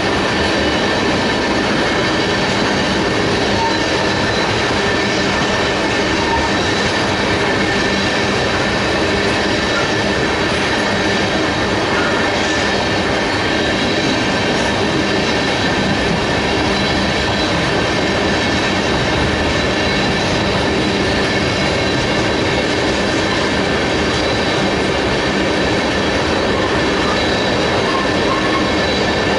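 Norfolk Southern freight train rolling steadily past, with a continuous rumble of cars and wheels and a steady high-pitched squeal from the wheels on the rails.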